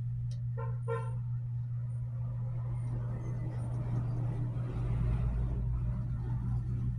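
Road vehicle going by, with two short horn toots close together near the start and its engine and tyre noise swelling through the middle, over a steady low hum.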